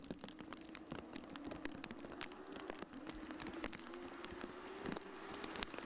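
Faint, distant car engines running steadily, their drone creeping slightly up in pitch, under many small scattered clicks and ticks.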